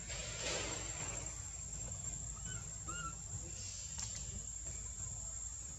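A few brief, high arched chirps from an animal, about two and a half and three seconds in, over a steady low background rumble, with a short noisy rustle-like burst about half a second in.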